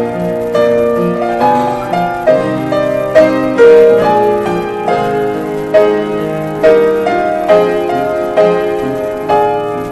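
Grand piano playing a slow, steady passage of notes and chords, struck about once a second and left to ring.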